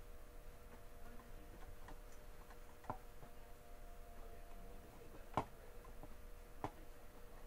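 Faint steady electrical hum with three sharp clicks spread through it, the middle one the loudest.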